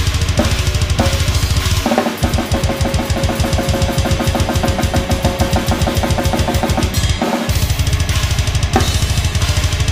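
Acoustic drum kit played fast: a dense run of rapid bass drum strokes under cymbals and snare, with the pattern changing about two seconds in and again about seven seconds in.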